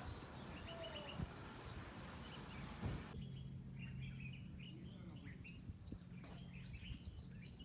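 Birds chirping: many short, high calls, repeated and overlapping, over steady background noise. About three seconds in the background noise drops abruptly, leaving the chirps over a low steady hum.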